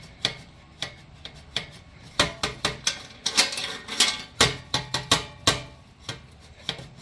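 Irregular metallic clinks, knocks and scraping as a stock slip-on muffler is worked up and down and eased off its exhaust header pipe, with the strikes coming thickest in the middle.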